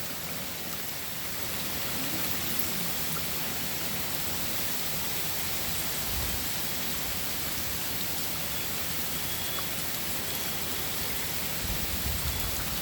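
Heavy hurricane rain falling steadily, an even hiss, with brief low rumbles about six seconds in and near the end.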